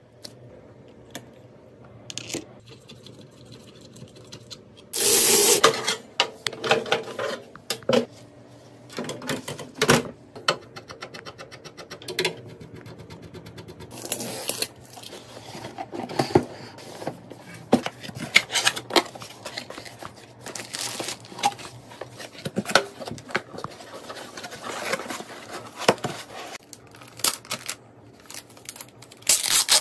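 Close-up handling noise from assembling a PC: many small sharp clicks, taps and scrapes of parts and packaging, with a loud rustling rush about five seconds in. Later a blade scrapes through the plastic shrink-wrap on a cardboard box.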